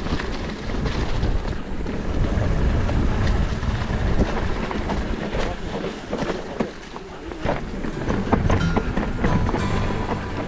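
Wheels rolling over a rough trail, with a steady rumble, a busy clicking rattle and wind buffeting the microphone.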